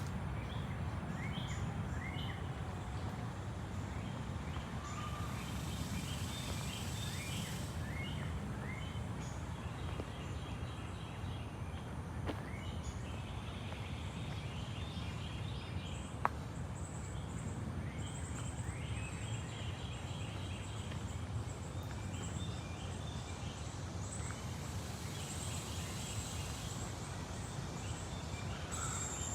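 Several small birds chirping and calling in short notes throughout, over a steady low rumble. There is a single sharp click about two-thirds of the way in.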